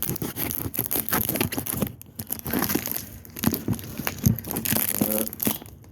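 Packaging being cut and torn open by hand: plastic and cardboard crinkling and tearing, with many irregular sharp crackles.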